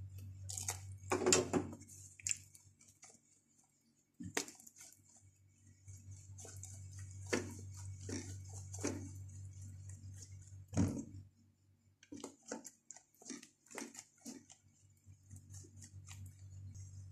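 A steady low hum with scattered clinks and knocks around an oven holding a cake pan on its wire rack; about eleven seconds in comes a thump as the oven door shuts, and the hum stops, followed by small light clicks.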